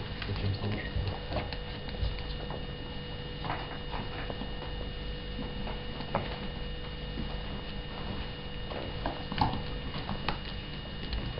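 Scattered small clicks and smacks from a ferret nosing and mouthing pieces of calamondin fruit on the floor, over a faint steady hum.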